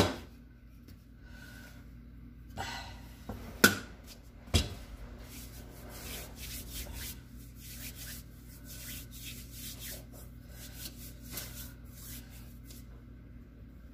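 Hands working a sticky, floury bread dough on a silicone mat. There are three sharp knocks in the first five seconds as the dough is handled and set down, then a run of soft rubbing and brushing strokes as flour is rubbed off the hands over the dough.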